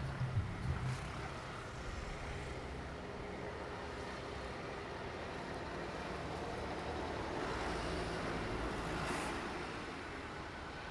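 A train running past on the rails: a steady rush of wheel and track noise over a low rumble, swelling a little about eight to nine seconds in, with a short hiss near that point.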